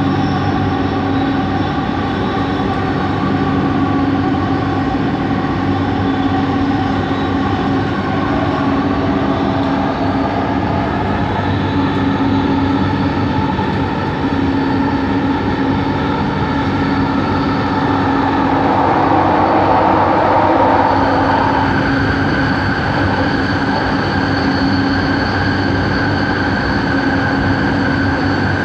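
Bombardier Innovia ART 200 linear-induction metro car running at speed, heard from inside the car: a steady hum of several tones over wheel and track rumble. It grows a little louder about nineteen seconds in.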